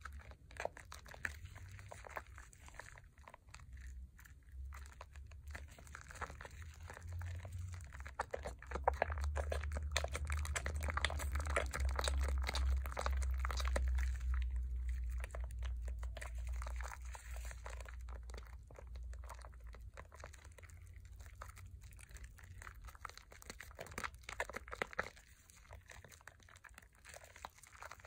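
A bar of Pears soap worked by wet hands into thick lather: a dense run of squishing and crackling foam, loudest through the middle, with a low rumble beneath it then.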